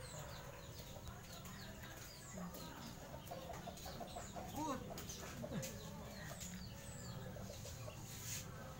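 Chickens clucking softly, with a short run of calls near the middle, over many high, short chirps throughout and a few faint clicks.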